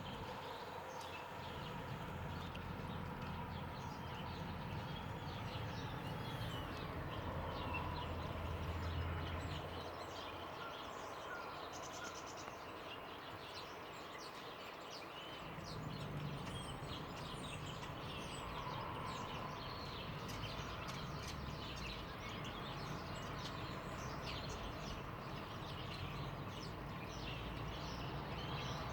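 Small birds chirping and twittering repeatedly, with many short high calls, over a steady low rumble that fades for a few seconds mid-way.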